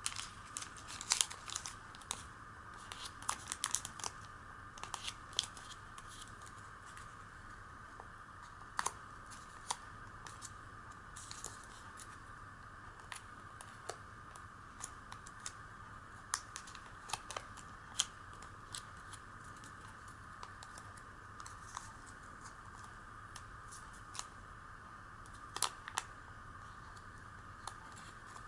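Origami paper crinkling and crackling as hands fold and press creases into it, in quick clusters for the first few seconds and then in scattered crackles, over a steady background hiss.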